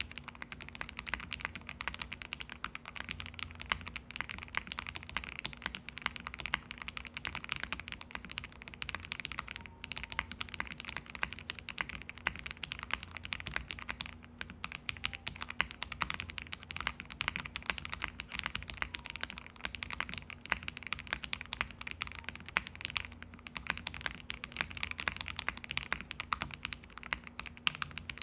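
Continuous fast typing on an MW65 stacked-acrylic, gasket-mounted 65% mechanical keyboard with lubed KTT Mint linear switches on a polycarbonate plate, dampened with case foam, plate foam and a two-layer tape mod. The keystrokes come as a dense, unbroken stream of clicks.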